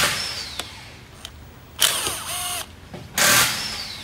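Cordless power driver with a T30 Torx bit running in three short bursts, backing out the screw that holds the plastic engine cover. The first and last bursts trail off in a falling whine as the motor spins down.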